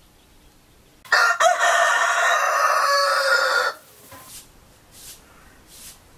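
A rooster crowing once, a loud call lasting about two and a half seconds, starting about a second in. A few soft clucks of hens follow.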